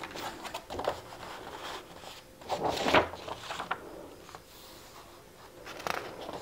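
Pages of a paperback picture book being turned and handled on a wooden table: several dry paper rustles and swishes, the loudest about three seconds in, with another page turn near the end.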